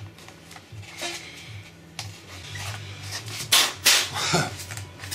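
Hobby knife blade dragging through Z-foam and the cut strip of foam rubbing free: scratchy rasping strokes, loudest about three and a half to four and a half seconds in.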